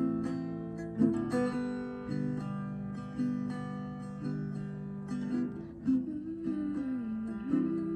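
Acoustic guitar playing an instrumental passage, chords changing about once a second with sharp plucked attacks.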